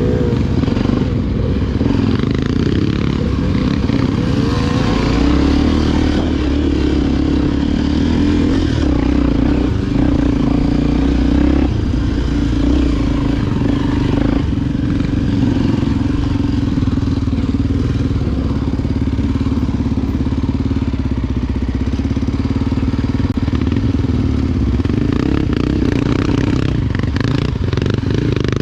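Honda XR Tornado single-cylinder enduro motorcycle engine running at steady revs while riding, its even engine note holding through, with a hiss of wind and road noise over it.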